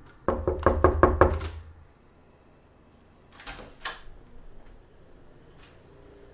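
Rapid knocking on a wooden door, about seven hard knocks in just over a second, followed a couple of seconds later by two fainter knocks or thuds.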